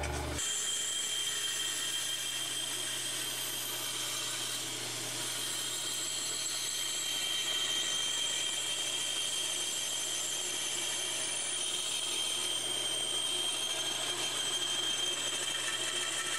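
Bandsaw running with a narrow blade cutting along a letter outline: a steady, even machine sound with a high whine over a low hum.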